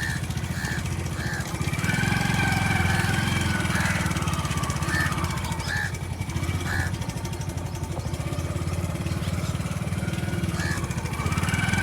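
A small engine idling steadily, with short high chirps recurring over it every second or so.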